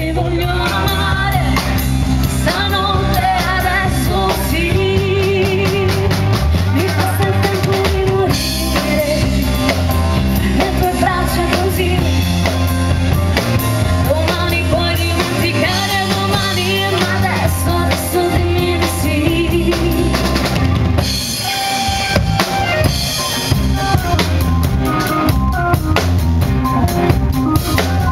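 Live rock band playing through a PA: a woman singing lead over electric guitar, bass, drum kit and keyboard. About three quarters of the way through the singing stops and the drums come to the fore.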